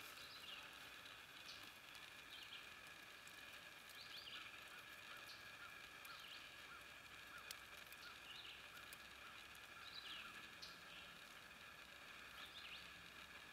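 Quiet forest ambience: faint, short bird chirps every second or so over a steady, faint high hum.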